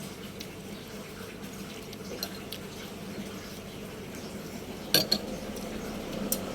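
Light clinks of cutlery and dishes over a steady low hum, with two sharp clinks close together about five seconds in and another near the end.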